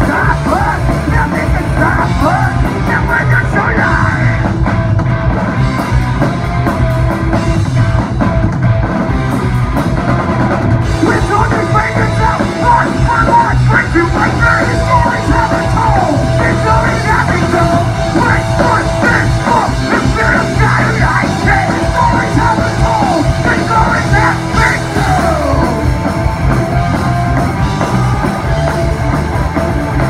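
Live rock band playing loud and without a break: electric guitars, bass guitar and a drum kit, with a singer's vocals over them.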